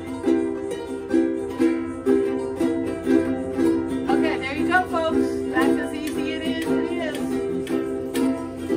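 Several ukuleles strumming a C7 chord together in an even rhythm, about two strums a second.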